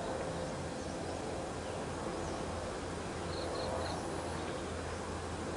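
Quiet outdoor ambience: a steady low hum and hiss with faint, short high bird chirps repeating every second or so.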